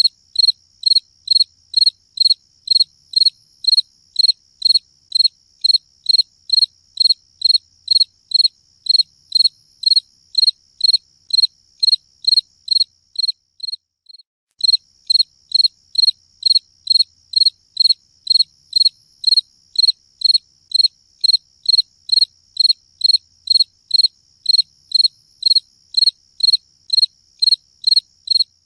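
A cricket chirping in a steady, even rhythm of high-pitched chirps, about two a second, with a short break about halfway through.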